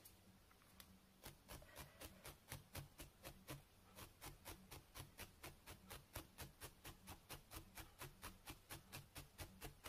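Felting needle stabbing repeatedly through wool into a felting pad, faint and regular at about four jabs a second, as a wool limb is felted onto a cactus body. The jabs start about a second in and stop just before the end.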